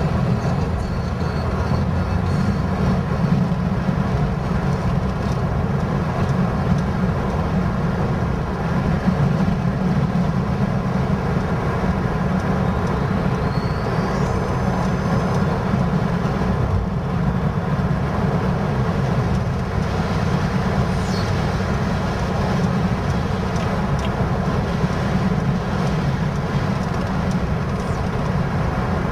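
Car driving at steady speed, its engine and tyre noise heard from inside the cabin as a continuous low rumble.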